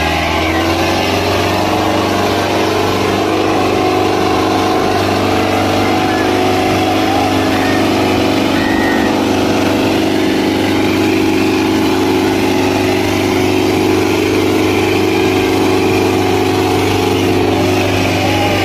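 Sonalika tractors' diesel engines running flat out under heavy load as they pull against each other in a tug-of-war, a loud, steady drone that holds one pitch throughout.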